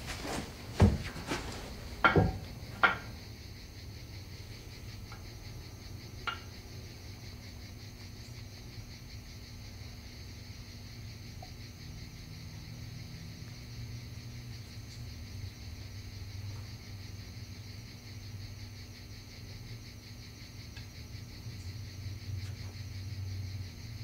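A few sharp knocks in the first three seconds, then a steady high drone of insects over a low steady hum.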